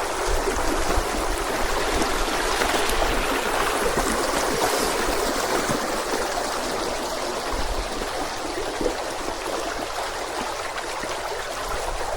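Glacier-fed mountain stream flowing steadily, an even rush of water.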